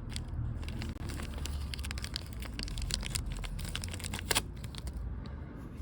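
Irregular light clicks and rattles of hand tools and bolts being handled under a car, over a low steady rumble.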